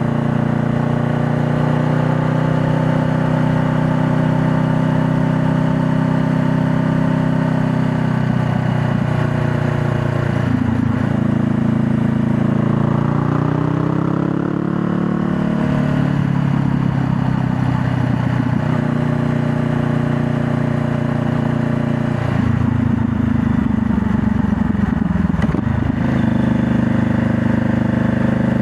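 2020 Honda Rebel 500's parallel-twin engine running under way. Its pitch holds steady at first, drops and then climbs again around the middle as the bike slows and accelerates, and goes rougher for a few seconds about three-quarters of the way through before settling back to a steady pull.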